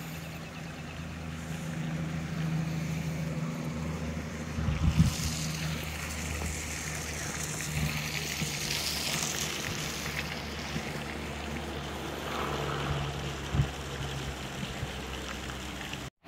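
A steady low engine drone under outdoor noise, with two short dull thumps, one about a third of the way in and one near the end.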